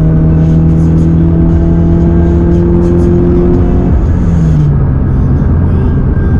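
The 2022 Subaru BRZ's flat-four engine, fitted with aftermarket headers, pulls under acceleration with its note climbing slowly for about four seconds. The revs then fall away, as on a shift or lift-off, over steady low road rumble.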